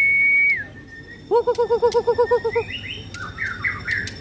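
Caged white-rumped shamas singing: a long steady whistle, then a fast run of about ten low notes a second, then a few quick higher chirps.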